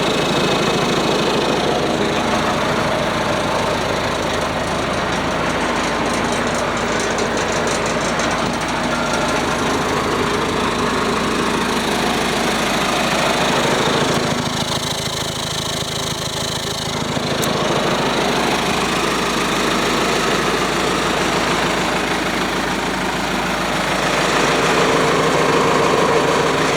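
John Deere 4045 four-cylinder 4.5-litre diesel engine of a SAISCO 813 wood chipper running steadily, slightly quieter for a few seconds about halfway through.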